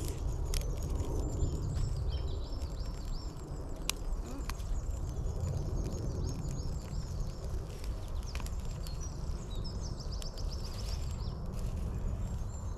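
Twigs and dead leaves burning in a small folding steel wood stove as the fire catches, with a few sharp crackles and pops over a low steady rumble. Birds sing rapid runs of high, falling notes, near the start and again about eight seconds in.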